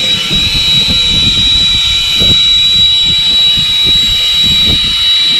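Fishing boat's engine running steadily with a constant high whine, and wind buffeting the microphone in gusts.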